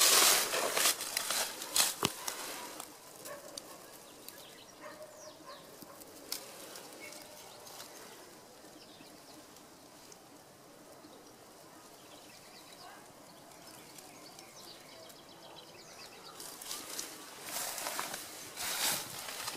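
Rustling and scuffing close to the microphone, in bursts for the first few seconds and again near the end, with a quiet background in between.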